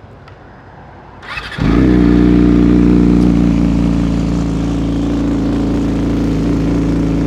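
Yamaha R6 sport bike's 600 cc inline-four being started: the starter cranks briefly about a second in, then the engine catches. It idles a little higher at first and settles into a steady idle through its large polished exhaust.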